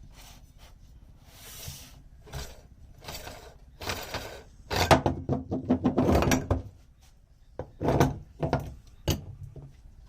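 A meat grinder being worked, making irregular knocks, thuds and short scraping bursts. There is no steady motor hum. The sounds are densest from about five to seven seconds in, with a last sharp knock near the end.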